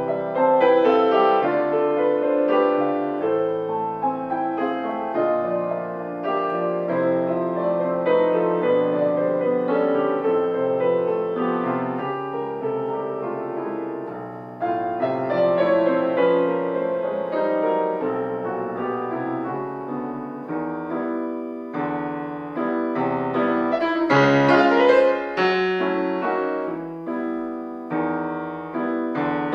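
Grand piano played solo: a continuous classical passage of dense chords and runs, with a sudden louder entry about halfway through and loud, bright chords near the end.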